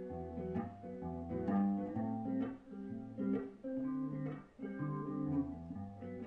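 Solo instrumental introduction to a song: single notes picked in a steady repeating pattern over low bass notes, with no singing yet.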